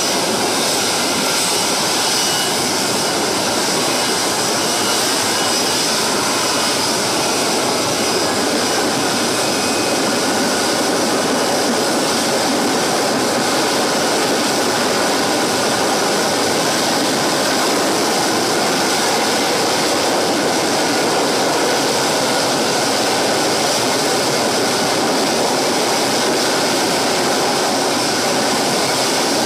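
F-35B Lightning II's jet engine and lift fan running at hover power during a vertical landing approach: a loud, steady noise with a faint high whine on top.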